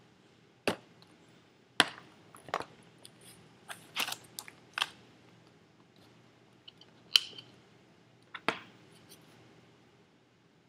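Hands handling a cardboard box and an iPad: about eight scattered taps, clicks and knocks, the sharpest two about seven and eight and a half seconds in.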